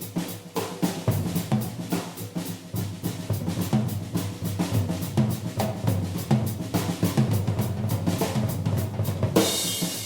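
1970 Ludwig three-ply drum kit played in a rapid, busy run of snare and bass drum strokes, with a cymbal crash near the end.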